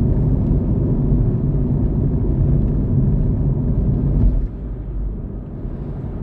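Car engine and road noise while driving, a steady low drone. It drops suddenly and noticeably about four and a half seconds in.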